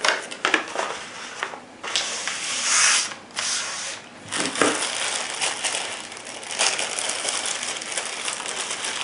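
Packaging being handled and unwrapped during an unboxing: crinkling and rustling, with a few sharp clicks and knocks in the first couple of seconds.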